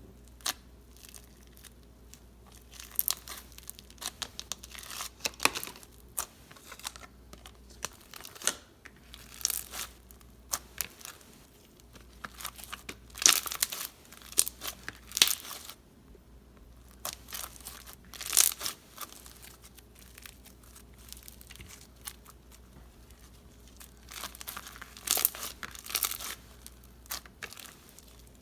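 Floam, slime mixed with foam beads, being squeezed and stretched by hand, giving irregular crackling, popping bursts with sticky tearing sounds.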